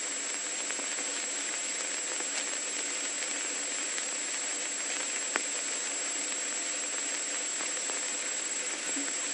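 Steady hiss of static noise with a faint, constant high-pitched whine, and a single faint click about five seconds in.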